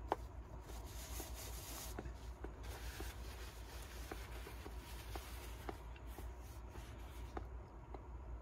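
Paper tissue rustling and rubbing as it is pulled out and used to wipe a man's mouth, with faint scattered clicks and a sharper click right at the start over a steady low hum.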